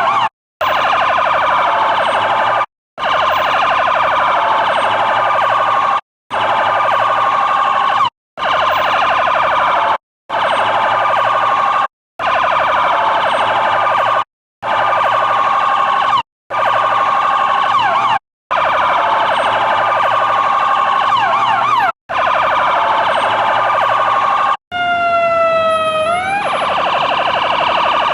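Electronic siren sounding a fast, dense pulsing tone that cuts out for an instant about every two seconds. Quick sweeping chirps come in around the middle, and a rising sweep with several stacked tones comes near the end.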